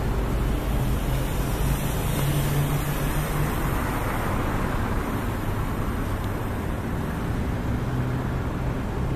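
Road traffic on a city street: a steady hum of vehicles, with one passing and loudest about four seconds in. Wind rumbles on the microphone.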